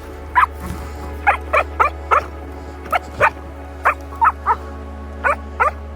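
Shetland sheepdog barking in short, sharp yaps, about a dozen in quick pairs and threes, over a steady low hum.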